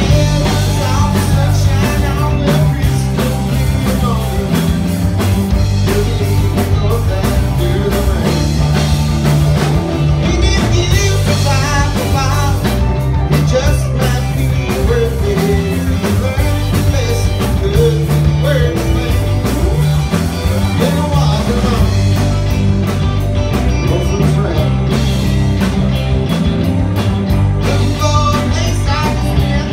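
Live blues-rock band of electric guitars and a drum kit playing a steady groove.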